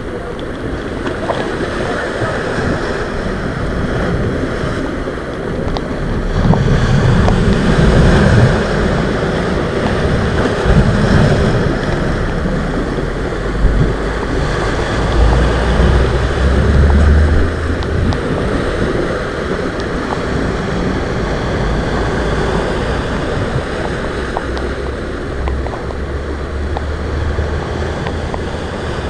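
Rough sea waves surging and breaking, with wind buffeting the microphone; the surf grows louder for a stretch in the middle.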